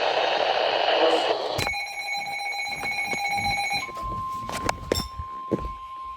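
Emergency alert tones received off a weather radio: a noisy, static-laden radio signal, then about one and a half seconds in a shrill tone of several pitches at once lasting about two seconds. Near four seconds it gives way to one steady single-pitched alert tone, with a few sharp knocks over it.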